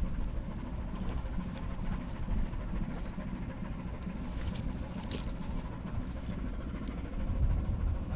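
Ship's engine running, a steady low rumble with noise on deck.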